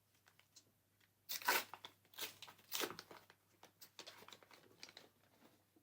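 Foil wrapper of a Star Wars Unlimited booster pack being torn open and crinkled: a few sharp rips starting about a second in, then lighter crinkling.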